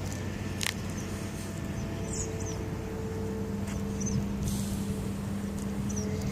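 A motor's steady low drone, with several short, high bird chirps scattered through it and a sharp click just under a second in.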